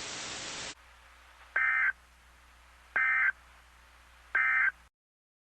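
NOAA Weather Radio Emergency Alert System end-of-message signal: three short SAME digital data bursts, each a fraction of a second long and about a second and a half apart, marking the end of the alert. Before them, a moment of steady radio hiss cuts off.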